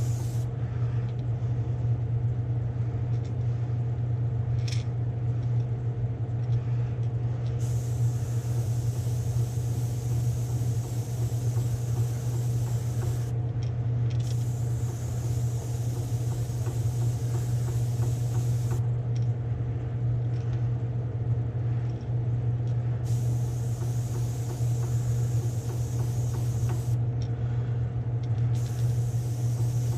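A steady low motor hum, with the hiss of an airbrush spraying paint in light on-and-off passes over it.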